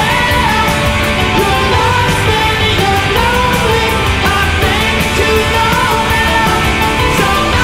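Background rock music with a singer and drums.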